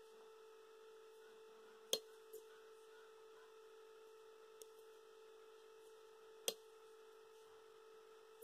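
Metal knitting needles clicking against each other: two brief, sharp clicks, about two seconds in and again about six and a half seconds in, with a couple of fainter ticks between. Underneath is a faint, steady hum.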